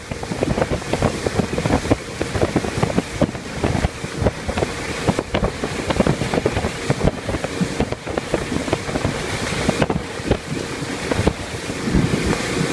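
Wind buffeting the microphone and the hull slapping and splashing through choppy water aboard a motorboat running at speed, with a faint steady tone underneath.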